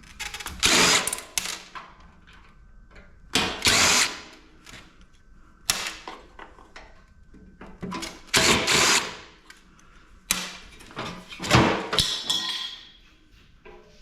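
Power drill driving screws out of sheet-metal panels in several short bursts of about a second each, with quieter pauses between.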